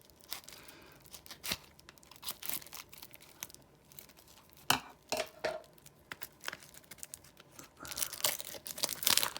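A trading card pack's wrapper being torn open and crinkled by hand, in scattered sharp crackles that grow denser near the end.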